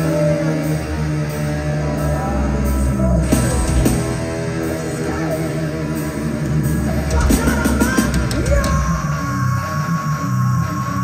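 Live heavy metal band playing: bass guitar, drums and electric guitar, with a high note held for a couple of seconds near the end.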